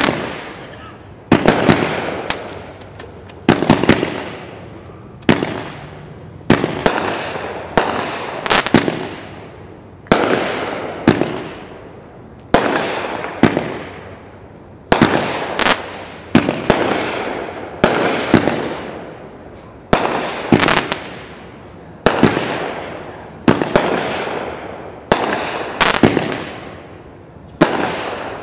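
Winda 'All In' 500-gram fireworks cake firing shot after shot: a sharp bang about every second or so, sometimes two close together, each trailed by a fading rush of crackle from the bursting stars.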